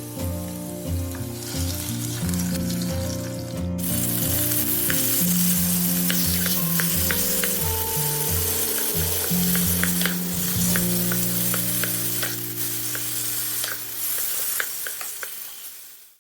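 Food frying in hot oil in an electric cooking pot: a steady sizzle that grows much louder about four seconds in, with scattered small pops and ticks as it is stirred. Background music plays underneath, and the sound fades away near the end.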